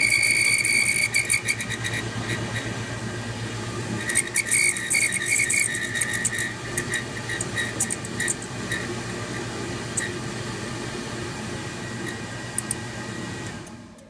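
Fasco Swirlwind draft-inducer blower on a 90% efficiency gas furnace running with a steady hum and a high-pitched whistling squeal. The whistle is strongest in the first two seconds and again about four seconds in, with scattered sharp ticks.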